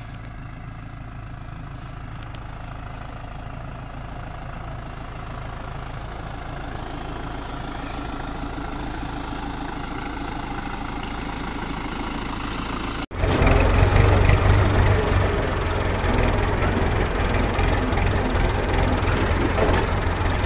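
Farm tractor's diesel engine running steadily, growing gradually louder as the tractor comes close. About 13 seconds in the sound cuts abruptly to a much louder engine heard from on the tractor itself.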